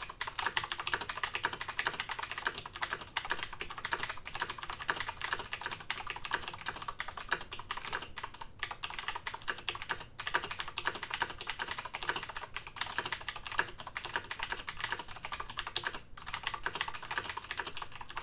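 Fast, continuous typing on a Tt eSPORTS MEKA PRO mechanical keyboard with clicky Cherry MX Blue switches: a dense stream of keystrokes broken by a few short pauses.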